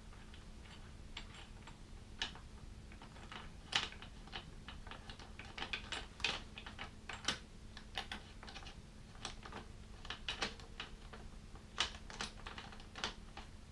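Irregular small metallic clicks and ticks of hand tools working on bolts as the pannier mounting brackets are run down onto the rack, over a faint steady hum.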